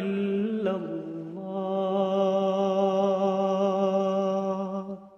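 A solo voice sings the drawn-out closing note of a devotional Islamic chant (qasida/dhikr). The pitch steps down about a second in, then settles into one long held note with a slight waver that fades away near the end.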